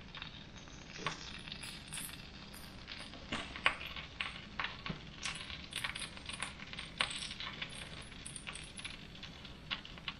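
Fat and juices from a rotisserie chicken crackling and popping in a hot foil drip pan on a gas grill: irregular sharp pops, sometimes several close together, over a faint steady background.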